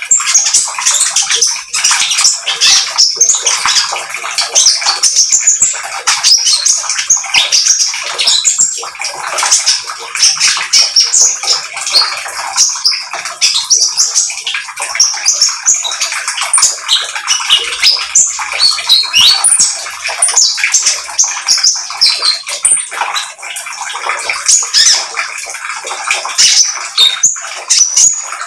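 Caged sunbird singing a continuous, rapid stream of high-pitched chirps and twitters with barely a pause.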